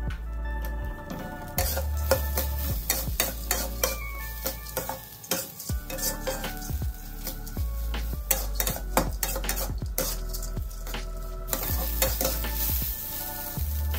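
A spatula scraping and knocking against a wok while glutinous rice is stir-fried, the rice sizzling; the scrapes come quickly and irregularly.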